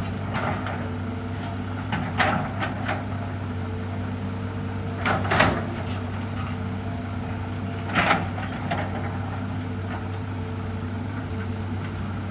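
Hitachi EX200 excavator's diesel engine running steadily, with short bursts of clanking about 2, 5 and 8 seconds in.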